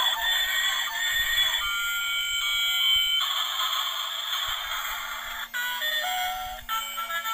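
Battery-powered toy Thomas the Tank Engine train playing a tinny electronic tune through its small speaker, with a steady low hum underneath.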